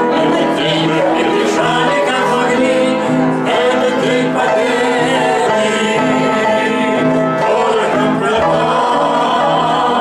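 An elderly man singing a song over an instrumental accompaniment, with a bass figure repeating about twice a second.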